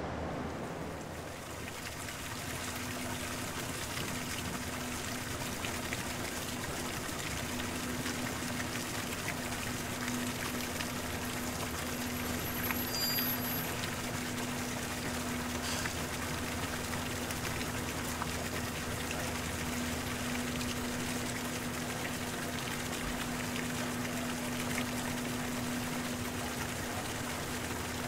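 Steady hiss of trickling water or rain, with a steady low hum under it from about two seconds in, from the HC85 hybrid diesel test train standing at the station.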